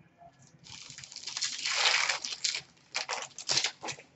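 A hockey card pack wrapper being torn open, a loud rustling tear of about two seconds, followed by several short crinkles as the wrapper is pulled off and the cards handled.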